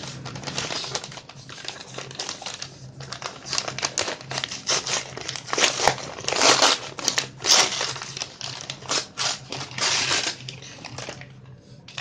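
A paper mailing envelope and the plastic bag inside it being crumpled, crinkled and torn open roughly by hand. The crackling is loudest in the middle and dies away near the end.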